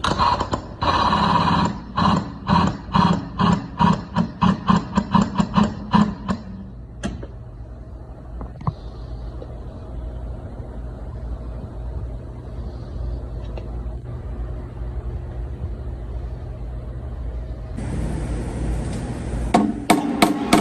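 Body hammer tapping down a high ridge on a steel quarter panel held under pulling tension: a run of ringing metallic taps that speed up over about six seconds, then a steady low hum.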